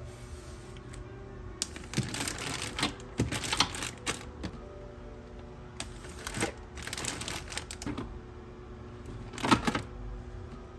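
Plastic food containers and zip-lock bags being handled: irregular clusters of clicks, clacks and rustling, the sharpest near the end, over soft background music.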